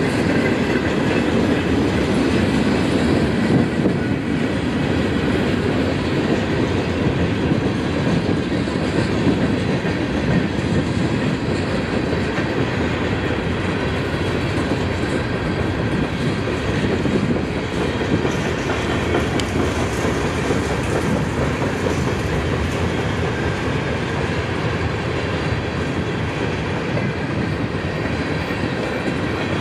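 Freight train cars rolling past at close range: a steady rumble of steel wheels on the rails.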